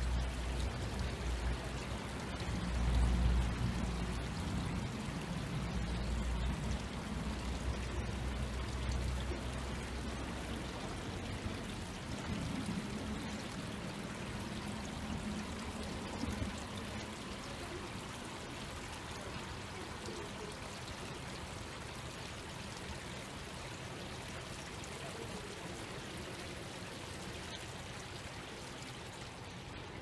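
Shallow stream spilling over a low weir: a steady babble and splash of running water. A low rumble underneath fades out about ten seconds in.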